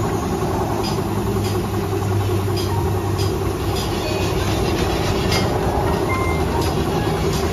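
A motor running steadily with a low hum, with a few faint clicks over it.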